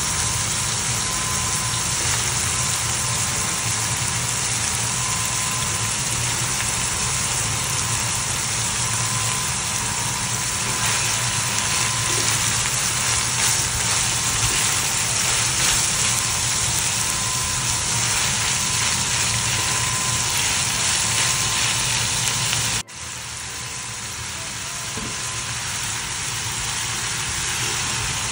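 Sliced pork, onion and chayote strips sizzling steadily in oil in a frying pan. About 23 seconds in the sizzle drops out abruptly, comes back softer and slowly builds again.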